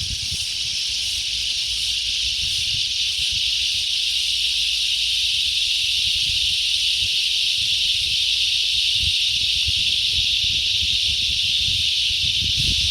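Steady high-pitched drone of an insect chorus, with wind buffeting the microphone in low, gusty rumbles that grow stronger near the end.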